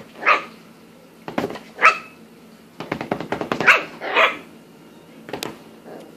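Miniature Schnauzer puppy barking: about four short, high-pitched yappy barks over a few seconds.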